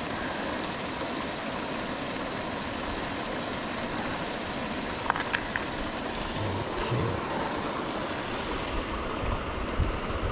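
Steady rushing and churning of a pond's paddlewheel aerator beating the water, with a few short clicks about halfway through.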